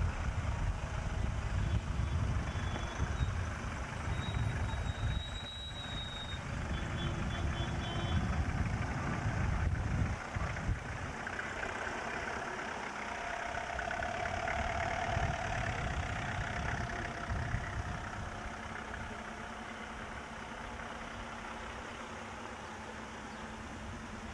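Cars driving slowly past one after another, engines running and tyres on the road. The low rumble is heaviest in the first ten seconds or so, then settles to a quieter steady hum.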